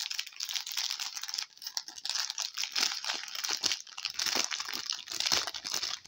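Small plastic sachets of diamond-painting drills crinkling and rustling as they are handled, in a dense run of crackles and little clicks.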